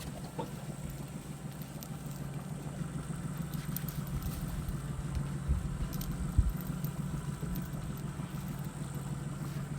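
An engine idling steadily with a low hum, with two short knocks a little past the middle.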